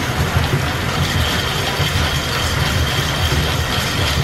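Belt-driven machine-shop machinery running off a steam-powered line shaft: a steady mechanical clatter over a pulsing low rumble. A thin, steady high whine comes in about a second in.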